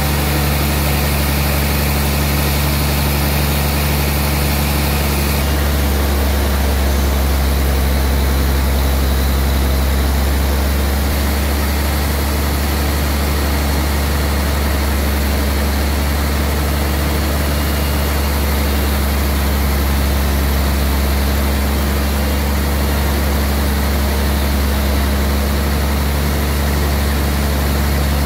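Sawmill machinery running steadily with a loud low hum and several steady low tones. About five seconds in, the higher hiss fades and the hum shifts slightly, then it runs on evenly.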